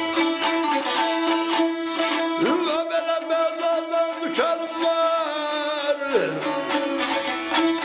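Azerbaijani aşıq folk music: a saz strummed rapidly over a steady drone note, with a held melody line above it that slides between pitches.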